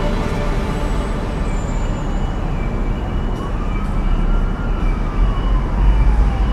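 Steady street noise with a low rumble. About three seconds in, a distant siren sounds one slow wail that rises and then falls in pitch.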